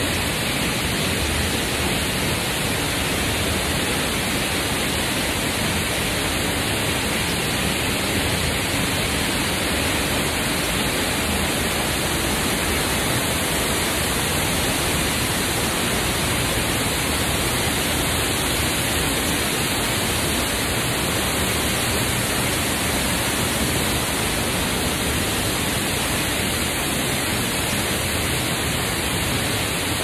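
Loud, steady rushing of a waterfall's falling water.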